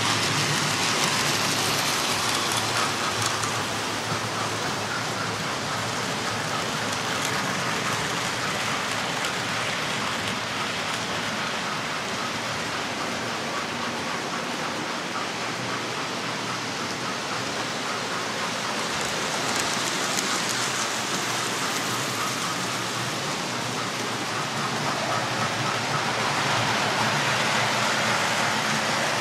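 Several model railway trains running around the layout: a steady rushing whir of small electric motors and wheels on the metal track. It swells a little about twenty seconds in and again near the end.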